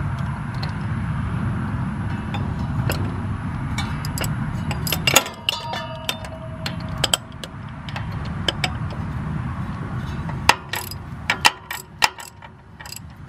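Ratchet wrench clicking and metal tools clinking as a water pump bolt is run down, one clink ringing briefly about five seconds in and a quick run of clicks near the end. A steady low rumble sits underneath for much of it.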